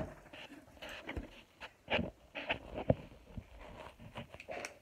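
Handling and rummaging noise: a phone rubbing and bumping against a hand and clothing, with irregular rustles and soft knocks.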